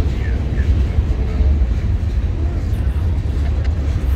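Freight train rolling past: tank cars, covered hoppers and boxcars, their wheels on the rails making a steady low rumble.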